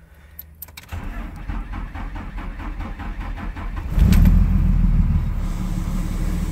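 A few clicks, then the 2004.5 Ram 3500's Cummins turbo-diesel cranks slowly and evenly for about three seconds before catching with a loud flare. It then settles into an idle that the owner calls really weird and rough. He suspects a dragging starter for the slow crank and a bad crankshaft position sensor harness for the rough idle.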